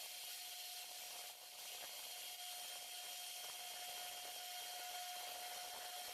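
Power tool or machine tool running steadily, a continuous hiss with a steady whine, as in metal being machined.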